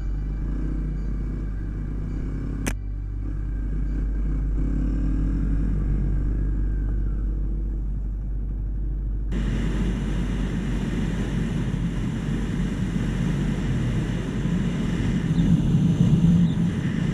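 Kawasaki KLX250 single-cylinder four-stroke dirt bike engine running at trail speed, with one sharp click a little under three seconds in. About nine seconds in the sound switches abruptly to louder engine and wind rush on the helmet microphone at road speed, which cuts off sharply at the end.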